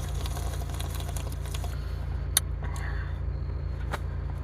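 Steady low rumble inside a car cabin, with a couple of faint clicks.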